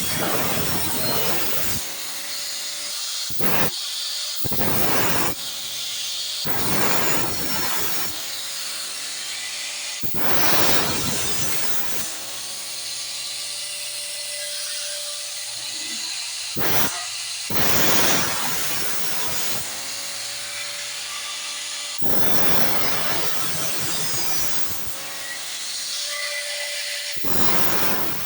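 Angle grinder with a cut-off disc cutting metal in a series of short passes. Each cut is a harsh grinding burst, and between cuts the spinning disc gives a steady whine.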